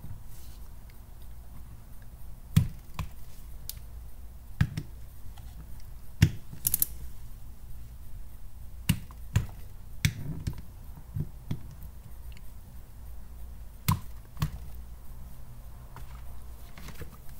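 Click-type torque wrench clicking as it reaches its set torque of 192 inch-pounds (16 ft-lb) on the harmonic balancer's bolts: a scattered series of sharp clicks, some in quick pairs, over a low steady hum.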